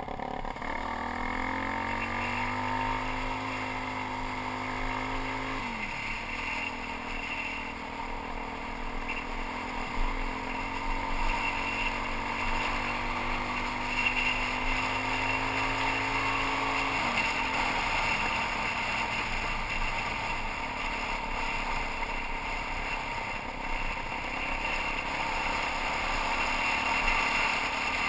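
Suzuki DR-Z400 single-cylinder four-stroke engine pulling through the gears: its pitch climbs steadily, drops at an upshift about six seconds in, climbs again and drops at another upshift about seventeen seconds in, then holds steadier at speed. Wind and tyre noise on gravel run underneath throughout.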